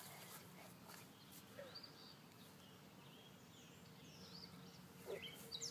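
Quiet background noise with faint, scattered bird chirps, short and high-pitched.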